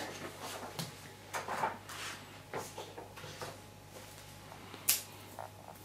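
Light handling sounds of card and an acetate sheet being picked up and moved on a table: scattered soft rustles and small taps, with one sharp click about five seconds in.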